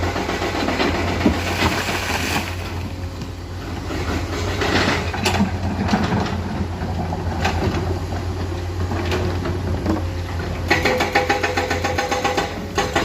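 Komatsu hydraulic excavators' diesel engines running steadily, with scattered knocks and clanks from the machines at work. Near the end one engine picks up to a fast, even throb as it works harder.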